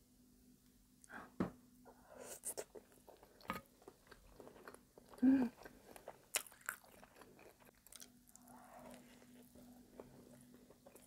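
Close-miked eating sounds: a soft, gooey piece of baked brioche French toast with caramel sauce being pulled apart by hand, then bitten and chewed, with scattered wet mouth clicks and smacks. One louder mouth sound comes about halfway through.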